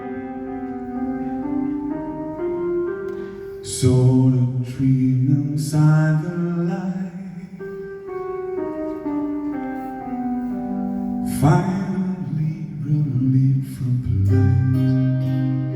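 Live band playing a slow, quiet passage of a progressive rock song: held, ringing notes over a low bass line, with a few sharp accents.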